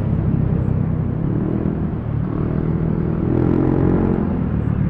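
Yamaha NMAX 155 scooter's single-cylinder engine running under way, with road and wind noise; its pitch rises and falls around the middle.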